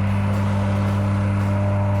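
Small gas engine of a pull-started compactor running steadily under load while compacting a gravel road, a low, even drone.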